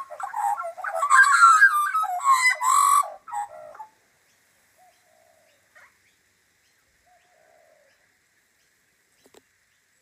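Two Australian magpies carolling together, a loud jumble of warbling notes that stops about three and a half seconds in. After that only a few faint short calls.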